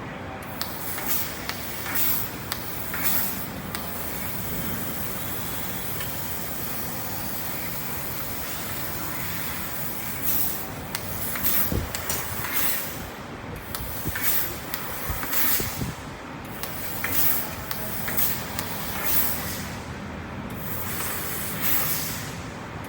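Fiber laser cutting machine running: a steady hiss with many short, sharp hissing bursts every second or two, typical of assist gas blowing through the cutting head as it pierces and cuts.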